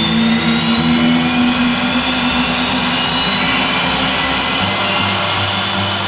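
Cessna Citation CJ2 business jet's turbofan engines running, a high whine rising steadily in pitch as the engines speed up, over a constant rush and a low hum.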